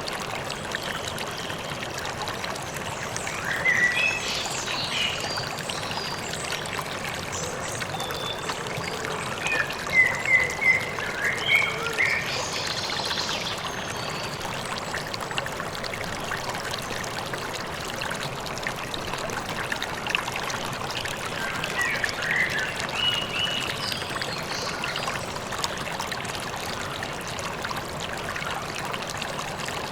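A river or stream running steadily, with birds chirping in short bursts of high notes three times: a few seconds in, around ten to thirteen seconds in, and again a little past twenty seconds.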